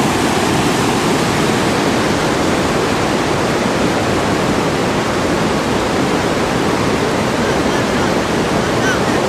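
White-water rapids rushing through a rocky river gorge: a steady, loud wash of water noise with no breaks.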